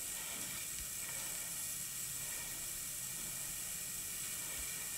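Steady faint hiss with a low hum underneath: background noise of the recording, or room tone.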